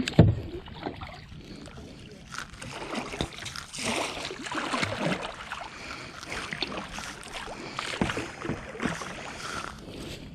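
Kayak paddle blades dipping and pulling through the water with splashing and dripping, in irregular strokes. A sharp thump sounds just after the start.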